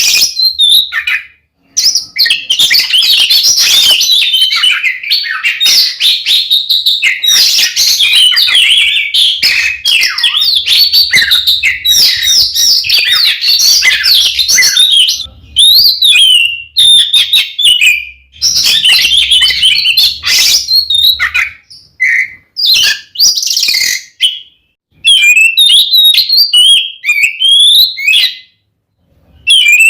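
Oriental magpie-robin singing loudly in long, rapid runs of varied whistles, trills and chirps, separated by a few brief pauses. It is the bird's agitated, combative fighting song.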